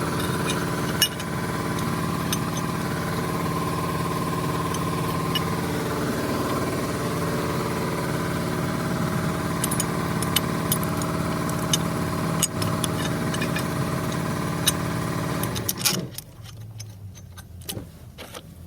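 A small motor running steadily with a hum and scattered clicks, then cutting off suddenly about sixteen seconds in.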